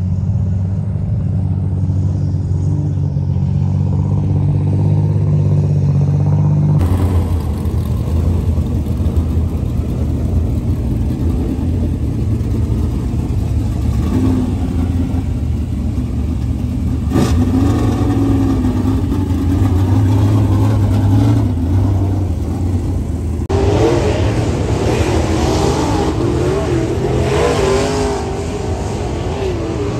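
Dirt-track race car engines in three cut-together stretches: a steady low engine note, then an engine running with its pitch wandering and one sharp click about halfway, then from about three quarters in a car lapping the dirt oval, its engine revving up and down.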